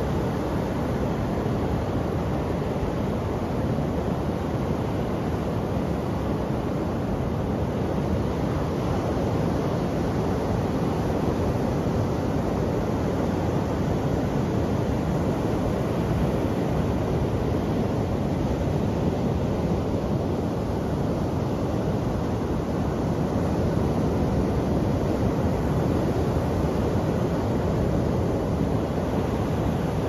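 Ocean surf breaking offshore and washing over a rocky beach: a steady low rush of water with no distinct single crashes.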